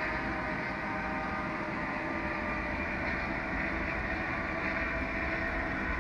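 H0-scale model train, the Electrotren RENFE 443 'Platanito' electric railcar, running along the layout track. Its motor and wheels on the rails make a steady running noise that grows slightly louder as it approaches.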